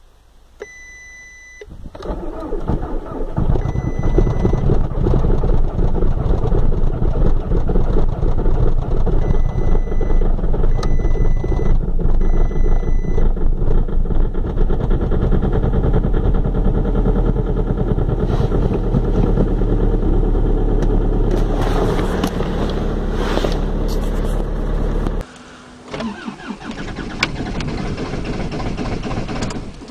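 VW Golf IV 1.9 TDI four-cylinder turbodiesel cold-starting at −18 °C: a short crank, then it catches and runs at about 1000 rpm. The car's warning chime beeps several times over the start and the first seconds of running.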